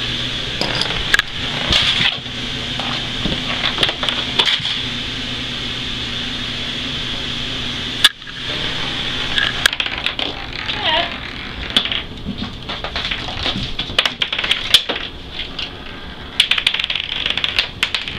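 Marbles rolling and clicking on a hard floor, with scattered sharp clicks and knocks, thickest in the second half. A steady hum runs under the first eight seconds and cuts off suddenly.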